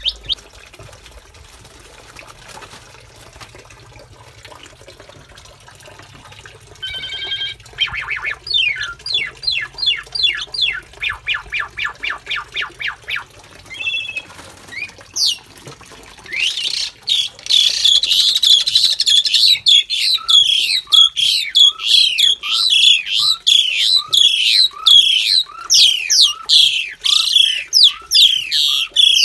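Asian pied starlings calling: a run of quick repeated notes about a quarter of the way in, then, from about halfway, loud continuous chattering calls.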